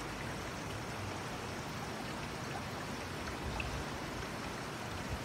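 Steady trickling and splashing of aquarium water circulation, with a few faint ticks.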